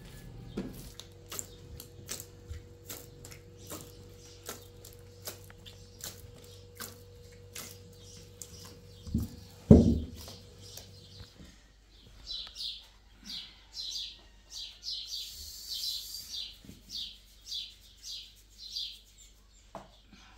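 A bird chirping, short high chirps about two a second through the second half. Before that, scattered light clicks and one dull thump about ten seconds in.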